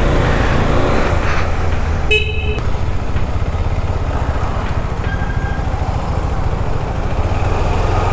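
Steady low rumble of road travel with wind buffeting the microphone, as on a motorcycle ride in traffic. A vehicle horn honks once, briefly, about two seconds in.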